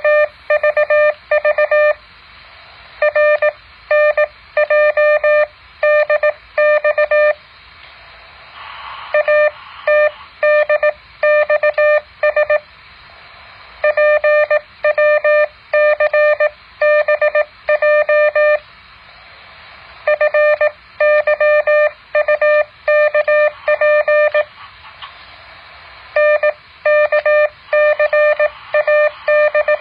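Morse code practice tone: a steady beep keyed on and off in dots and dashes, sent in groups of characters with pauses of a second or two between groups, over a steady hiss.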